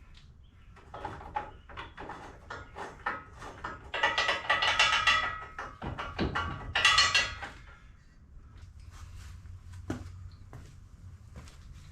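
Hand-tool work on metal parts: a run of quick clicks and knocks, with two louder stretches of metallic, lightly ringing clatter about four and seven seconds in, then a few scattered taps.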